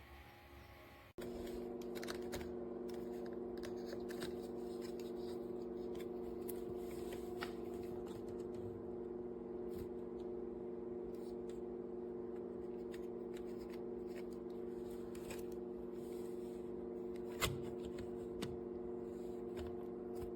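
VIVOSUN AeroWave E6 clip fan running with a steady hum made of several tones and an irregular light clicking or rattling; the hum starts abruptly about a second in. After two weeks of use the fan sounds like this, and the owner takes it as a poor showing for the product.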